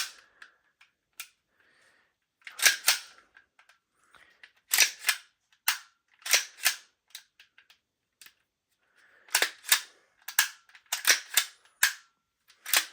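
Armourer Works G18C airsoft gas blowback pistol worked by hand: sharp metal clicks and snaps in pairs and small clusters every second or two, as the slide is cycled and the steel hammer drops on each trigger pull. The trigger is not resetting properly.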